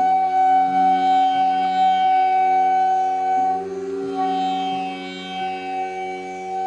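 Instrumental background music in an Indian classical style: one long held melody note over a steady drone.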